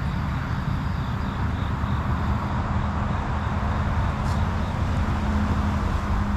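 Honeybees humming around busy hives, a faint steady hum that grows a little stronger in the second half, under a steady low rumble. One brief click about four seconds in.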